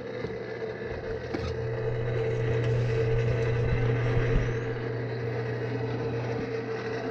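Steady mechanical hum, with a metal click about four seconds in as the diamond-plate steel doors of an Oyler rotisserie smoker are unlatched and pulled open.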